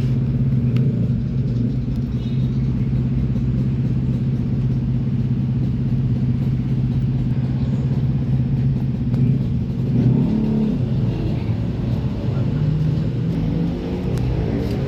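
Mini washing machine's motor running with a steady hum. About ten seconds in its pitch wavers, then it settles into a lower tone.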